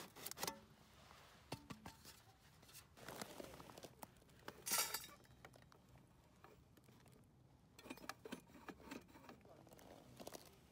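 Sheet-metal parts of a tin-can rocket stove clinking and scraping as they are handled: scattered light clinks, a rustling scrape about three seconds in, a sharper metallic clatter about five seconds in, and more scraping near the end.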